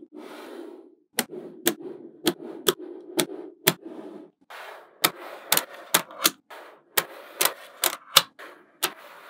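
Small neodymium magnet balls snapping onto a slab of magnet balls with sharp clicks, about two a second, with a low rustling noise between the clicks.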